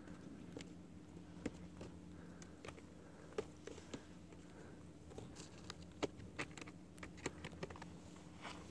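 Faint, irregular light clicks and taps close to the microphone over a low steady hum.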